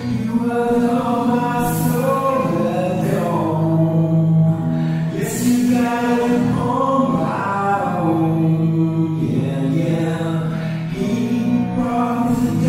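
Background music of chant-like singing: long held vocal notes over a steady low drone.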